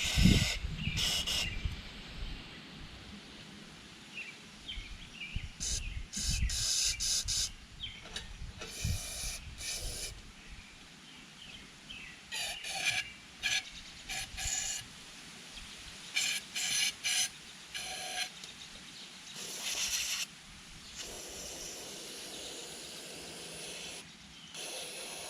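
Aerosol carburetor cleaner sprayed through its straw into the emulsion tube and jet holes of a small-engine carburetor, in a series of short hissing bursts with a longer steady spray near the end, flushing out the gelled fuel that was blocking fuel flow. A low clunk of handling opens it.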